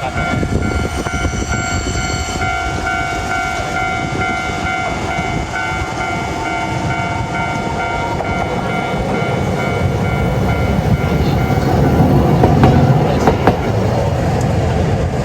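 Japanese level-crossing alarm ringing its repeated electronic 'kan-kan' tones, which stop about halfway through, while a Toden Arakawa Line tram runs over the crossing: a low rail rumble swells to its loudest about three-quarters through, with a few sharp wheel clicks on the rail joints.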